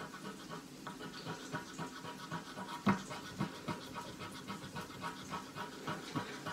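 Scratch-off lottery ticket being scratched with a small hand-held scratcher, the coating scraped away in quick, repeated strokes, with one louder stroke about three seconds in.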